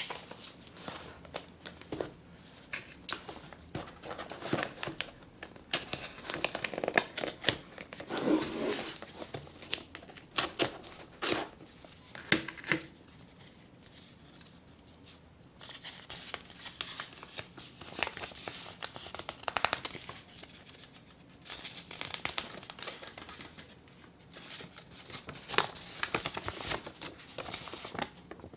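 Paper wrapping and yellow tape handled, peeled and torn open by hand, with irregular crinkling, rustling and sharp crackles, then a folded sheet of paper being unfolded.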